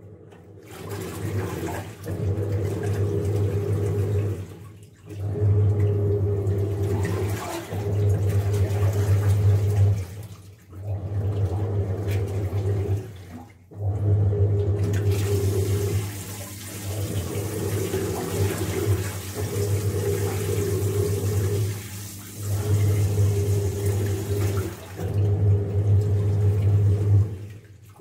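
Top-loading washing machine agitating a soaked blanket in its wash cycle: the motor hum starts and stops in repeated runs of two to three seconds with short pauses between, over sloshing water in the tub.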